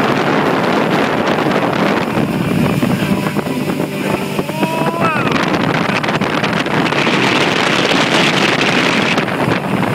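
Motorboat engine running steadily while towing a tube, with wind buffeting the microphone and rushing water; the hiss grows brighter about seven seconds in.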